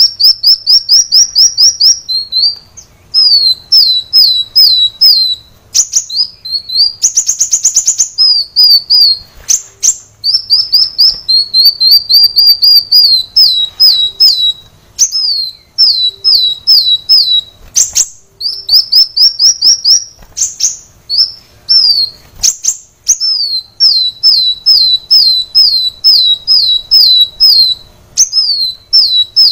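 Kolibri wulung, a sunbird, singing loudly. It gives rapid runs of high, sharp notes, each dipping in pitch, about five a second, in phrases broken by short pauses. A quick buzzy trill comes about seven seconds in.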